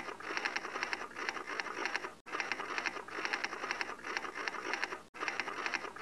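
Typewriter sound effect: rapid clacking of keys, broken by two very short gaps, one about two seconds in and one about five seconds in.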